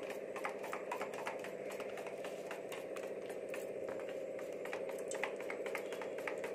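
Rapid, irregular clicking of a utensil against a steel bowl as thick gram-flour batter is beaten, with a steady hum underneath.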